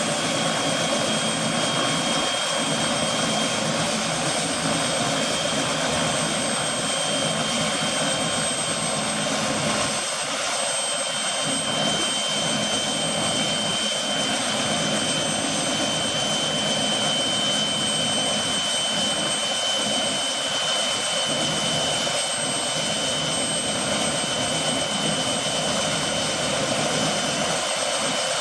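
Bell 206B-III JetRanger helicopter's Allison 250 turboshaft engine running, a steady high turbine whine over a constant rushing hiss.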